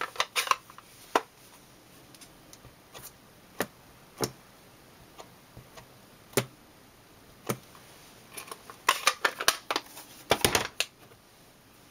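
Light plastic clicks and taps as an ink pad is dabbed onto a stamp mounted on a clear acrylic block to ink it. Single taps are scattered at first, then come in quicker runs near the end.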